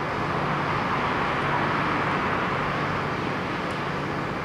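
Steady background hiss with a low hum, swelling a little about a second in and easing off again.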